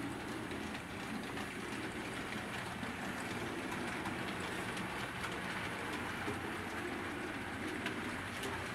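HO scale model freight train running on the layout track: a steady rolling rumble of the cars' wheels on the rails with a low hum and faint scattered clicks.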